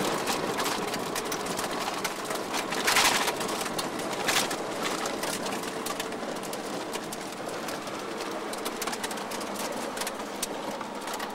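Steady rushing road and wind noise heard inside a car on a wet road, with scattered crackles. Two louder rushes come about three seconds in and again near four and a half seconds.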